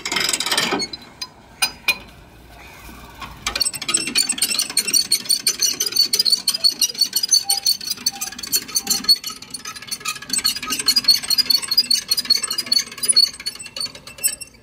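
A river ferry's winch and ratchet: a short grinding run that stops under a second in, a few loose clicks, then rapid, even clicking from about three and a half seconds in until just before the end, as the loaded ferry is made ready to cast off.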